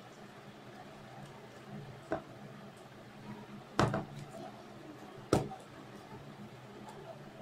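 Sharp clicks and knocks of plastic parts of a disco light's housing being handled and fitted together, three in all, the loudest about four seconds in, over a faint low hum.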